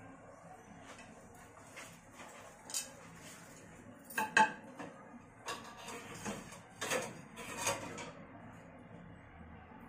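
Kitchen utensils and dishes clinking and knocking off and on, with the loudest knocks just after four seconds in.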